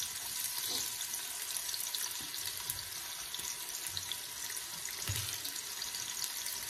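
Sliced onions sizzling in hot oil in an aluminium pressure cooker: a steady hiss.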